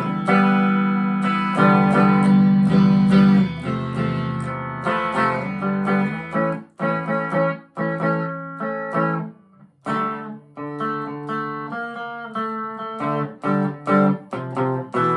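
Harley Benton ST-25th electric guitar played clean on its bridge humbucker through a Marshall MG15 amp: ringing strummed chords, then shorter picked notes and chord stabs about six seconds in.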